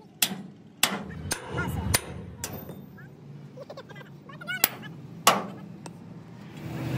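Hammer blows, a run of sharp strikes about every half second, then a pause and a few more strikes later on.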